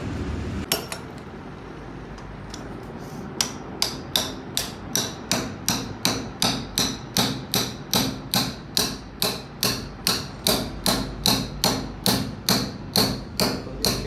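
Hammer blows on a steel bearing seated in a flanged metal hub: one strike about a second in, then steady hammering at about two and a half ringing, metallic blows a second.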